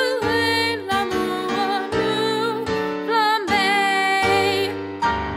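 A woman singing a song solo, her held notes wavering with vibrato, over a steady instrumental accompaniment; a last note begins near the end and starts to die away.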